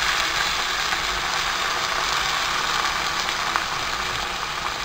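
Chopped chayote and soaked gram dal in a hot oiled pan sizzling as water is poured in, a steady hiss that eases slightly toward the end.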